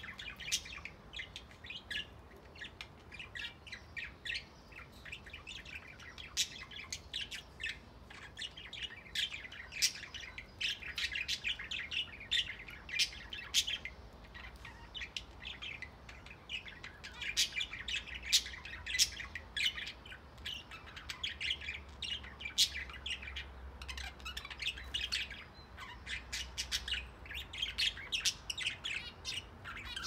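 A mixed flock of budgerigars and zebra finches chattering and chirping, with many short, sharp calls overlapping in a continuous stream.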